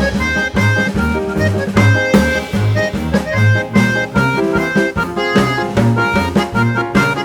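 Instrumental background music: a steady beat of bass notes and drums under held melody notes.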